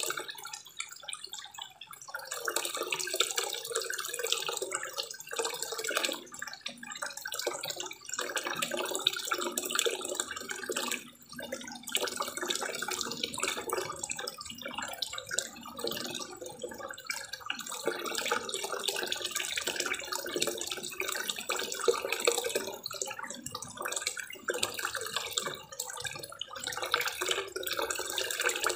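Water from a small spillway waterfall pouring into a koi pond: a continuous splashing of falling water that swells and dips every few seconds.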